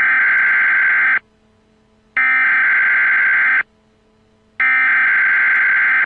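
Emergency Alert System header: three bursts of screeching digital data tones, each about a second and a half long, with about a second between them.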